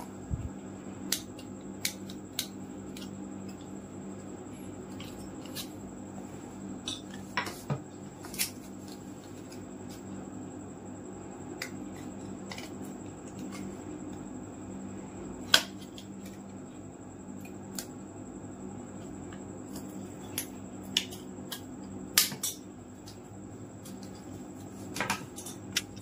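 A used plastic card being cut by hand: scattered sharp snips and clicks, the loudest about fifteen seconds in, over a steady low hum.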